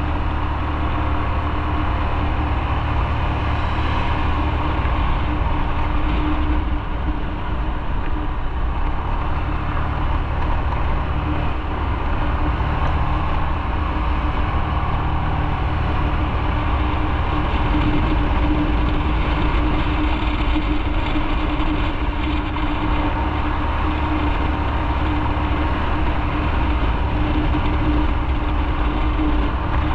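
Motorcycle engine running steadily, with an even low rumble and a constant drone and no revving.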